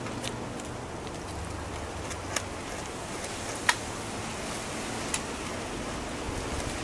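Beaver eating: a few sharp crunches as it chews, the loudest about midway, over a steady hiss.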